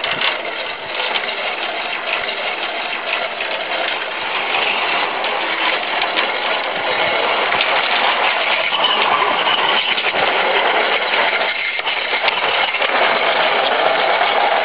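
Cement roof tile forming machine running steadily as it travels along the casting bed, getting louder in the second half.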